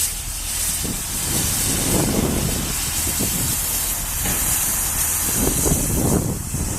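GWR steam locomotive hissing steam steadily, with irregular louder surges.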